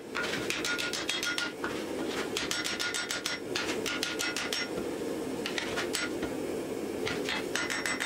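Hand hammer striking a red-hot steel goosewing axe head on an anvil in quick runs of blows, several a second, the anvil ringing with each strike; the blows thin out for a moment past the middle, then pick up again near the end. A steady low rushing noise runs underneath.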